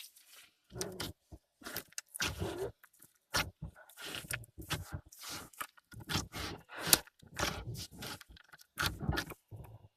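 Hands kneading a stiff slime with cream worked into it, giving irregular short sticky noises, a few a second.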